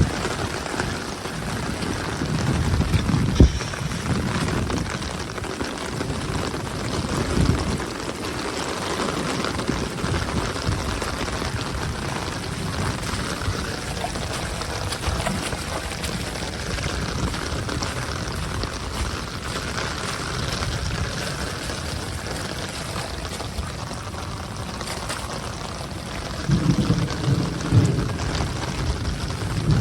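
Heavy rain falling steadily, with runoff water pouring. Louder low rumbles come about three and seven seconds in and again near the end.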